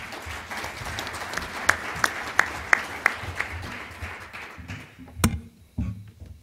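Audience applauding, with one person clapping close by at about three claps a second; the applause dies away after about four and a half seconds. Near the end comes a single sharp knock, then a thump.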